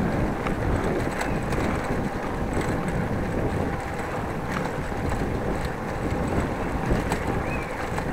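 Steady wind noise on a bike-mounted action camera's microphone while cycling, with tyres rumbling over brick paving and scattered small rattles and clicks.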